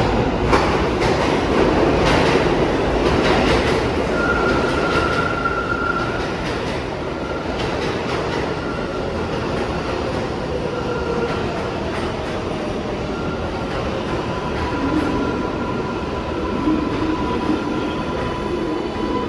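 New York City subway train running through the station, its wheels clicking over rail joints in the first few seconds, then a thin, high wheel squeal that comes and goes.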